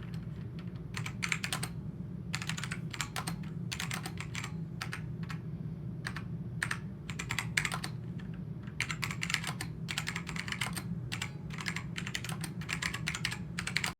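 Typing on an SMK-8851 Godzilla keyboard with tactile black Huaji Alps-clone switches: quick runs of clacking keystrokes in irregular bursts, over a low steady background hum.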